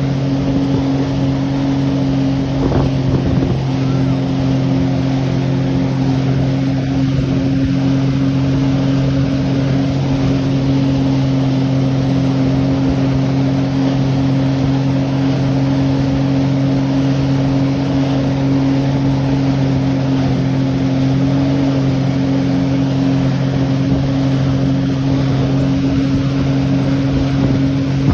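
Motorboat engine running at a steady, unchanging pitch, with wind and water noise.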